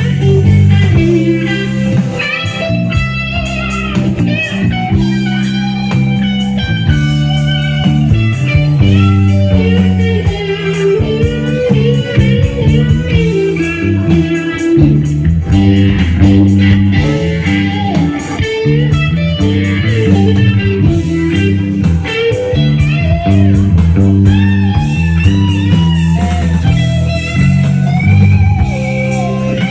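Live rock band playing: electric guitar lead with bending, sustained notes over bass guitar and drums with cymbals.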